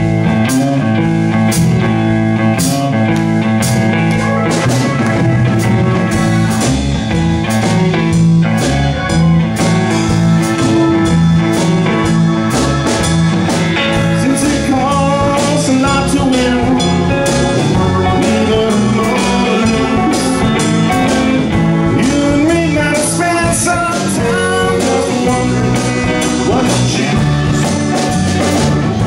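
Live band playing blues-rock, with electric guitar, keyboard and drums over a steady beat; guitar notes bend up and down through the middle of the passage.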